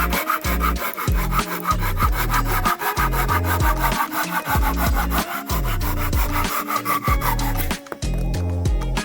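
Hand sawing of a 2×4 board with a double-edged Japanese saw (ryoba): steady back-and-forth strokes that stop near the end, over background music.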